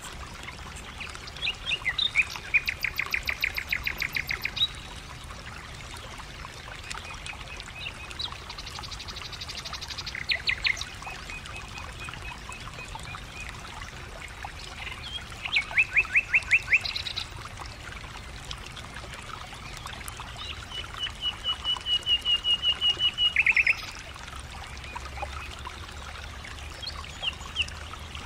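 Birds singing in bursts of rapid, evenly repeated trilled notes, four times, each burst lasting one to three seconds; the longest, near the end, holds one steady pitch.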